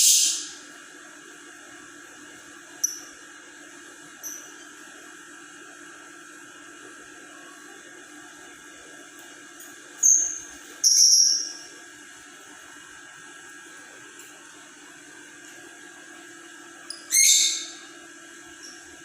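Lovebird giving short, shrill chirps and squawks every few seconds, the loudest near the start, around ten to eleven seconds in, and near the end, over a steady low hum.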